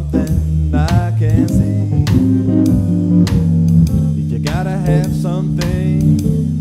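Blues-jazz organ trio playing an instrumental passage: electric guitar lines with bent notes over sustained organ chords and bass notes, with drum-kit strokes keeping time.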